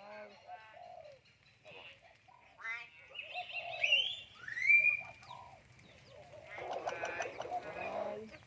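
Myna birds whistling and squawking: a few short rising whistles, then a stretch of harsh chattering calls near the end.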